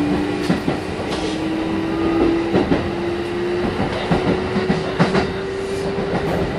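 Kintetsu 1420 series electric train running, its VVVF inverter and traction motor whine rising slowly and steadily in pitch as it picks up speed, over running rumble, with the wheels clicking now and then over rail joints.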